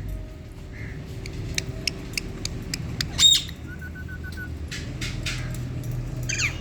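Female Indian ringneck parakeet squawking: one loud rising-and-falling call about three seconds in and a falling call near the end, with a short run of quick faint chirps and scattered clicks between, over a steady low background hum.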